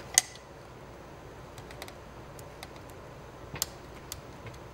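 Sparse small clicks and taps of a plastic stylus being handled and worked in a small metal bench vise. A sharp click comes just after the start and another about three and a half seconds in, with fainter ticks between.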